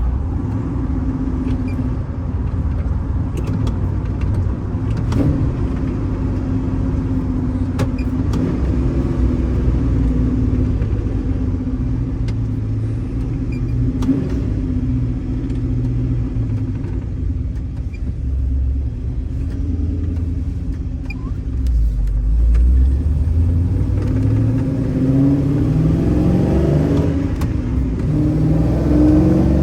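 Cammed Chevy Silverado/GMC Sierra pickup's engine running under way, a steady low rumble. In the last few seconds the revs climb as the truck accelerates.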